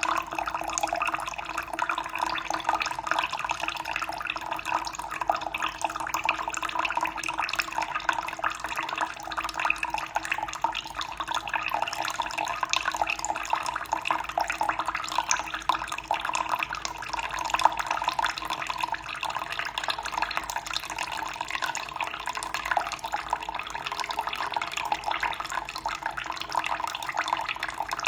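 Running water flowing steadily, a continuous dense patter of small splashes.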